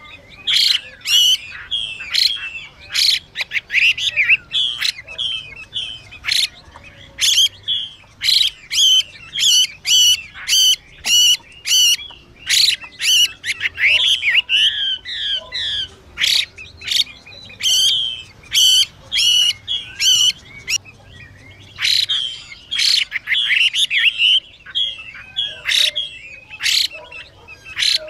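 Chinese hwamei calling in quick bursts of harsh, rasping notes mixed with short whistled phrases, with brief pauses between bursts. This is the female hwamei's 'xùy' call, used to stir caged male hwamei into singing.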